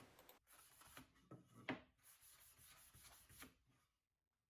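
Faint hand sanding: sandpaper rubbing back and forth on a wooden board, with a few light knocks.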